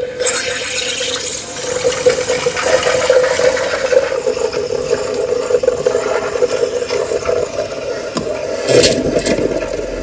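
Wonderchef espresso machine's steam wand frothing milk in a glass jug: a loud, steady hiss with bubbling, starting abruptly, with a louder surge near the end.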